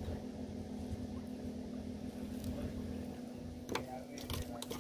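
Wet mahi mahi flesh and bones being handled on a wooden cutting board, with a few sharp knocks near the end, over a steady low hum.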